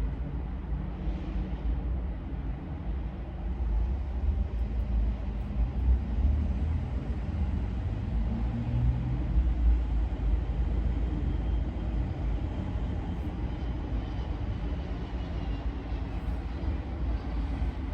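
Steady low rumble of a vehicle in motion: road and engine noise.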